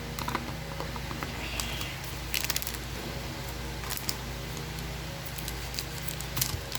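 Trading cards being handled and flipped through: scattered light clicks and rustles of card stock over a steady low background hum.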